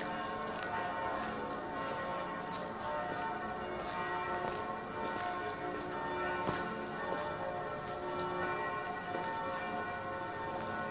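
Several church bells ringing together, their tones overlapping and sustained.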